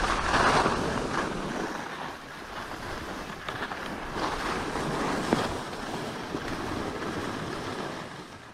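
Skis hissing and scraping over choppy snow, mixed with wind on the microphone, getting quieter as the skier slows almost to a stop. A single sharp click about five seconds in.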